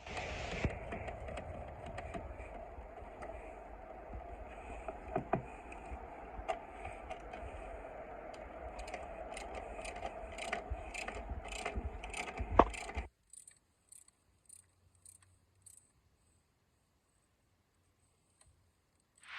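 Mechanic's hand tools working on a car engine: metallic clinks and scrapes, ending in a run of evenly spaced ticks, then the sound cuts off suddenly, about two-thirds of the way in.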